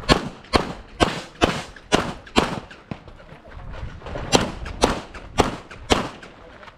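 Handgun shots fired in two quick strings during an IPSC stage: six shots about half a second apart, a pause of about two seconds, then four more at the same pace.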